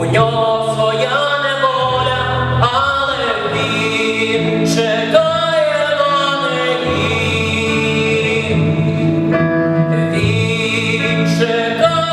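A song being performed: singing in long, gliding notes over instrumental accompaniment.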